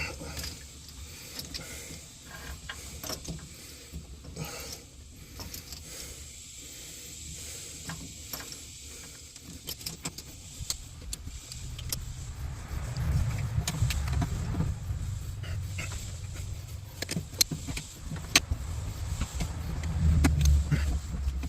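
Scattered light metallic clicks and clinks of hand work on hydraulic hose fittings, more frequent near the end. A low rumble swells in from about halfway through.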